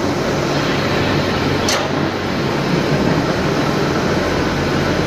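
Steady drone of machinery running, with a low hum throughout and a brief hiss about 1.7 seconds in.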